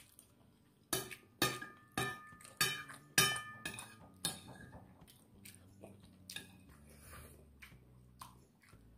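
Metal spoon clinking and scraping against a plate as the last rice is gathered up. A quick run of sharp clinks, some with a short ring, comes between about one and four seconds in, followed by softer taps.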